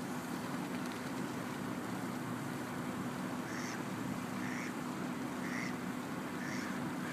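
Mallard ducks quacking: a run of about four short calls, roughly one a second, starting about halfway through, over a steady low hum.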